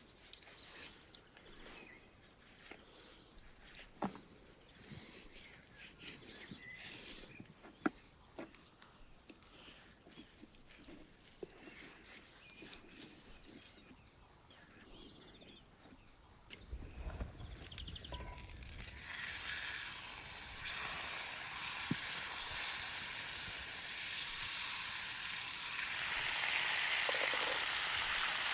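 Soft taps and handling clicks, then about two-thirds of the way through steak meets hot butter in a pan and starts sizzling in a steady, loud hiss.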